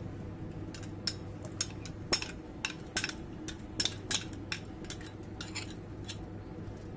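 Steel ladle clinking and scraping against a small glass bowl and the rim of a steel pot while liquid is stirred and ladled, a run of light, irregular clinks several times a second.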